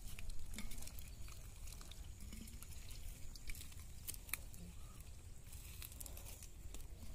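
Small wet splashes and pats in a shallow muddy puddle as small fish flop about and hands grab at them, scattered and irregular, over a low steady rumble.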